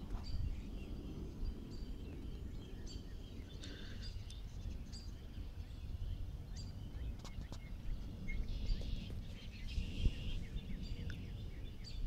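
Small birds chirping on and off over a steady low rumble of outdoor noise.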